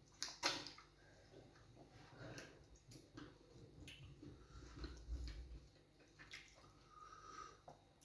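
Eating sounds from fufu and groundnut soup: scattered soft wet smacks, squelches and small clicks, the sharpest about half a second in.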